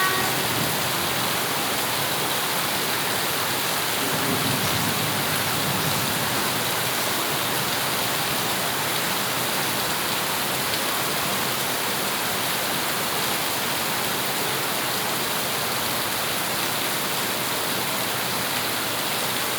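Steady rain falling, an even hiss of drops on surfaces. A faint low rumble rises briefly about four seconds in.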